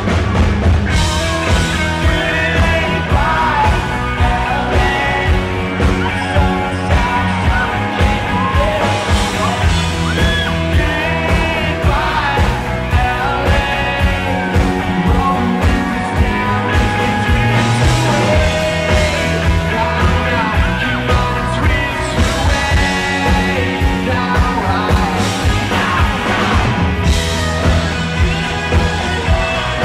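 Live rock band playing a song, with a male lead vocal singing over electric guitar and drums at a steady beat.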